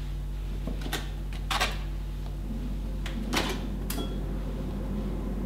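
A few light clicks and taps as a metal spoon scoops flour from a paper flour bag into a stainless steel mixing bowl, over a steady low electrical hum.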